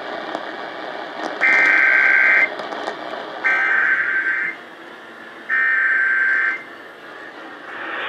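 Emergency Alert System SAME header: three bursts of buzzing digital data tones, each about a second long and about a second apart, played over a radio with steady hiss between them. The header is the coded start of a relayed Flash Flood Warning.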